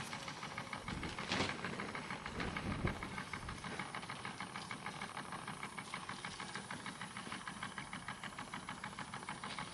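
RETROL SE-02 model steam engine running slowly, a fast, even beat of short puffs and ticks as it drives its small generator. There are two louder thumps about a second and a half and three seconds in.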